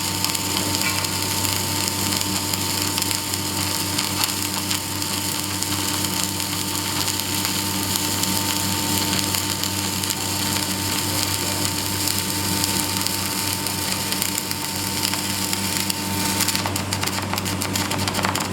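Electric welding arc crackling and sizzling steadily over a constant electrical hum. Near the end the steady tone drops out and the crackle breaks up into a fast string of sharp pops.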